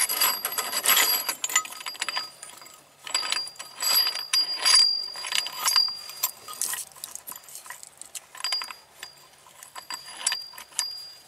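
Metal clinking and rattling of a brake caliper piston wind-back tool's screw and adapter plates being fitted and worked against the caliper, in irregular bursts of sharp clinks with a ringing metallic note.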